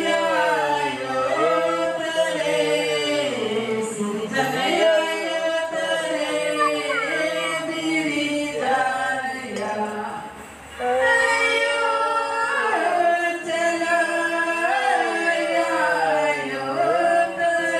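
Women singing an Adivasi Karma song together, one voice leading into a handheld microphone, with no instruments. The singing breaks off briefly about ten seconds in, then resumes.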